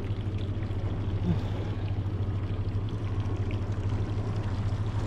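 Boat motor running steadily at low revs, a low humming drone, with water sloshing against the hull.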